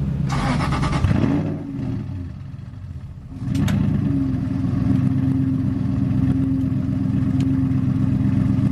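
Aston Martin Vantage GT4's V8 engine idling, heard from inside the cabin while the car creeps along. About a second in there is a burst of clatter and the engine sound drops away for about two seconds, then comes back steady with a sharp click.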